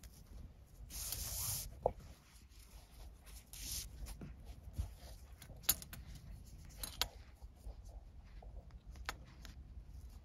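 4 mm nylon paracord being drawn through and around a plastic one-touch collar buckle by hand: two short swishes of cord pulled through about a second in and again near four seconds, then scattered light clicks and taps as the cord and buckle are handled.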